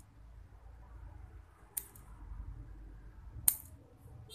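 Small scissors snipping a thin metal piece twice, about a second and a half apart, the second snip louder.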